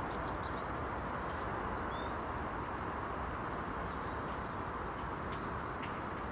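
Steady outdoor background hiss and rumble, with a few faint bird chirps in the first couple of seconds.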